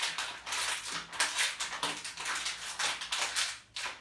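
Plastic cup being crushed and crumpled in the hands: a dense run of irregular crackles and crinkles, with a brief pause a little before the end.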